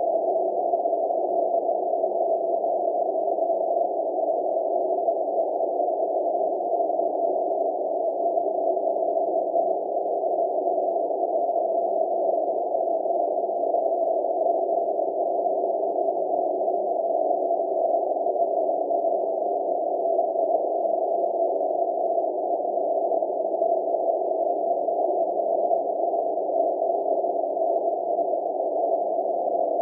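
A steady, unchanging low hum with a few held tones inside it, at an even level throughout.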